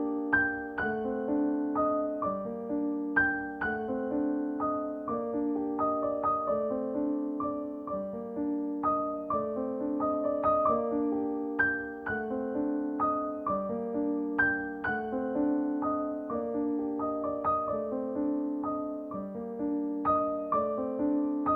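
Gentle background piano music, single notes and chords struck and left to ring.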